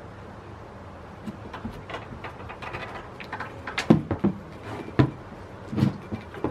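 Goats jostling and nosing at a small feeder box on hay: irregular knocks and thuds with rustling. The loudest knocks come about four, five and six seconds in.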